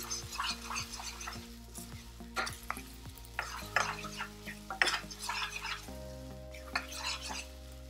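Spatula stirring and scraping a thick tomato-onion masala around a nonstick kadai: irregular scrapes and light clicks over a soft sizzle. The paste is cooked down until the oil separates, the sign that the masala is done.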